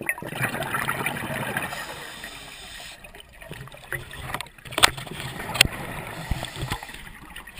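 Scuba diver's exhaled bubbles from the regulator, heard through an underwater camera housing: a burst of gurgling bubbles for the first second or so, fading to a lower bubbling wash, with two sharp clicks near the middle.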